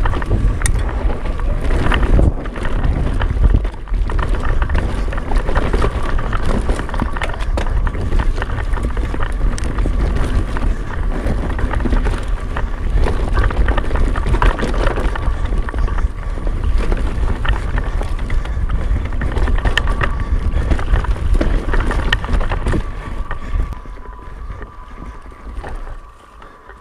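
Mountain bike descending a dirt trail: wind buffeting the camera microphone over the rattle and chatter of the bike and tyres on rough ground, with a faint steady whine underneath. The noise drops away near the end as the bike slows down.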